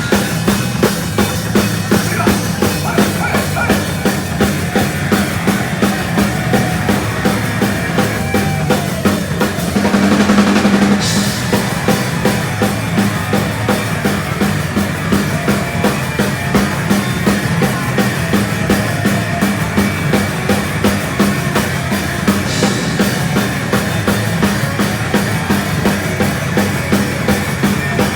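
Heavy speed metal band playing live, the drum kit driving a fast, steady beat under the full band, with a louder swell about ten seconds in.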